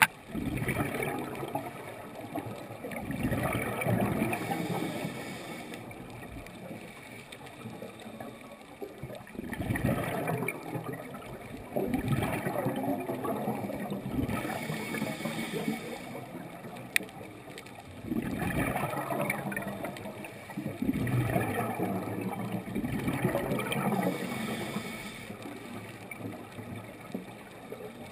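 Water gurgling and bubbling in about five surges of a few seconds each, with quieter gaps between them.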